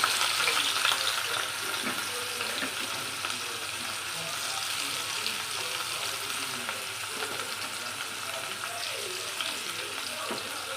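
Food sizzling in hot oil in a cooking pan: a steady frying hiss, loudest in the first second or two, then settling to an even level.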